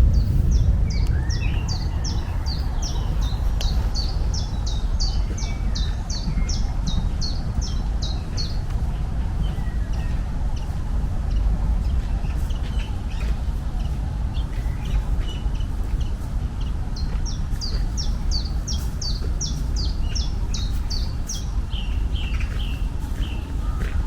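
A songbird singing long runs of short, high, repeated notes, about two or three a second. One run fills the first eight seconds and another comes about two-thirds of the way in. Under it is a steady low rumbling noise.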